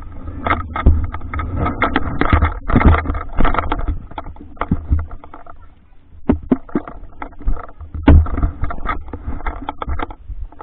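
Water splashing and sloshing around a camera held at the surface by a swimmer, in uneven splashes over a low rumble, easing off briefly about halfway through.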